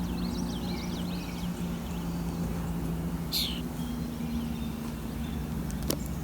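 Small birds chirping, with a quick run of twittering chirps in the first second or so and one louder chirp about three seconds in, over a steady low hum and outdoor background rumble.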